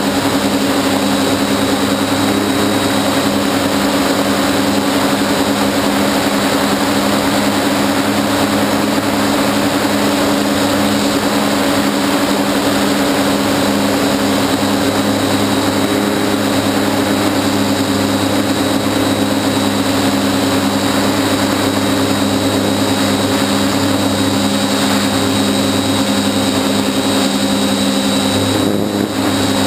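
A hexacopter's electric motors and propellers, heard up close from its own camera in flight: a steady hum of several held tones with no change in speed, dipping briefly near the end.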